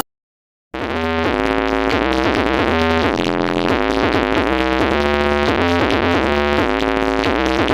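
Electronic dance music with a repeating synth melody over heavy bass, played loud through a large outdoor sound system; it cuts in abruptly after a moment of dead silence.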